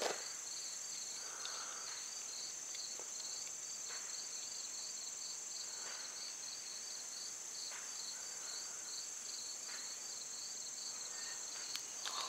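Insects, crickets, chirping steadily: a continuous high drone with a fast, regular chirp about two or three times a second. Under it there are faint, brief hisses from the hot steel tomahawk head being quenched in oil.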